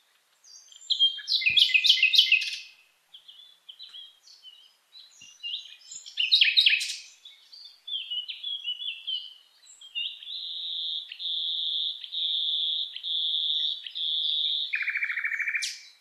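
Recording of a common nightingale singing a loud and powerful song: varied phrases of rapid high notes and chirps, then a long series of fast repeated notes, ending in a lower buzzy rattle and a quick upward whistle.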